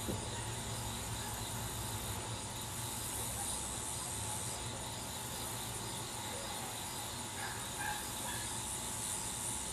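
Steady outdoor ambience: an even background hiss with faint, high, regularly repeating chirps.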